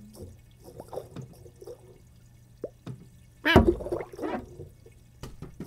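Cartoon sound effects of a cat's paw dabbling in aquarium water: small drips and splashes, with a louder splashing burst about three and a half seconds in.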